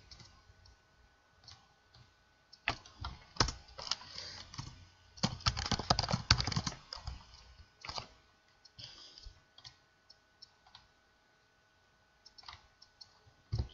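Typing on a computer keyboard in quick bursts of key clicks, densest a little past the middle, then a few scattered clicks and a quiet stretch near the end.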